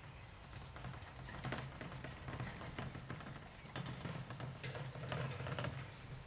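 Grass rustling and crackling in irregular small clicks as a cat rolls and twists on its back in it, over a low steady hum.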